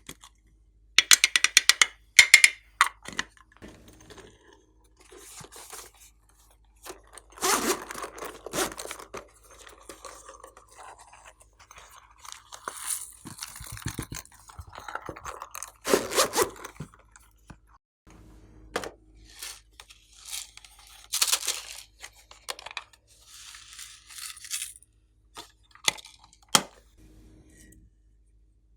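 Slime being handled and mixed by hand: irregular bursts of crackling and popping clicks, with scraping and crunching in between.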